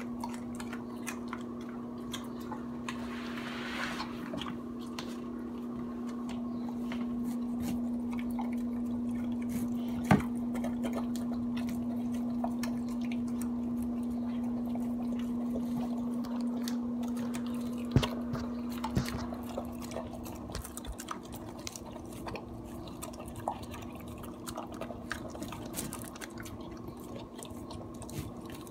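A Basenji–Pharaoh Hound mix eating a soft, oily mash from a stainless steel bowl: wet licking and chewing with many small clicks, and two sharper clicks about ten and eighteen seconds in. A steady low hum sounds beneath it and fades out about twenty seconds in.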